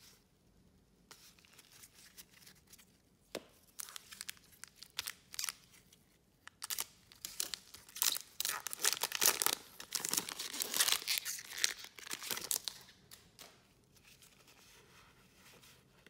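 A trading card pack's foil wrapper being torn open and crinkled by gloved hands. A few sharp ticks come first, then a loud, dense crackle of tearing and crinkling through the middle, which dies away near the end.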